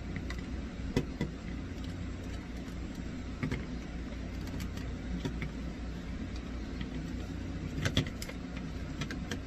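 Hands working a heated silicone mask seal: a few light clicks and knocks from the handling, the sharpest about a second in and near the end, over a steady low background hum.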